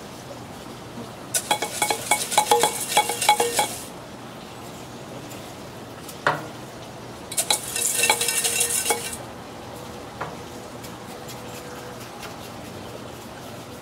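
Metal-handled sauce mop clinking and scraping against metal while glaze is mopped onto ribs on a smoker grate: two spells of quick, ringing clinks of about two seconds each, with a steady low hiss underneath.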